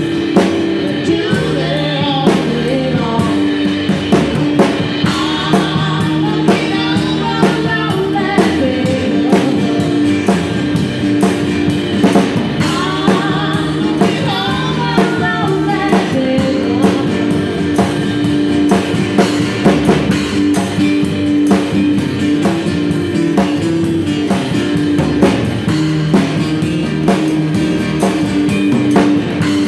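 Live band playing with drum kit, upright double bass and guitars, the drummer keeping a steady beat on drums and cymbals. A woman sings lead for about the first half, then the band plays on without vocals.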